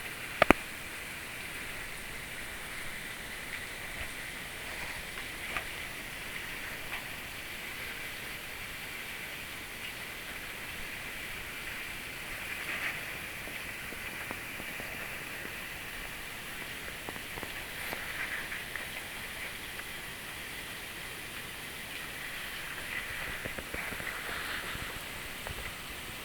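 Steady rushing of falling water from an unfrozen waterfall, swelling a little now and then. A sharp click comes about half a second in.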